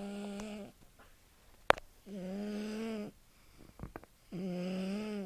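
A baby snoring loudly: three long, even-pitched snores about two seconds apart, each with a low, tractor-like drone. A single sharp click sounds between the first and second snores.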